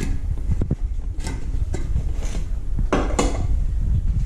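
Kitchen clatter: a few light clinks and knocks of dishes and utensils on the counter, the loudest cluster about three seconds in, over a steady low rumble.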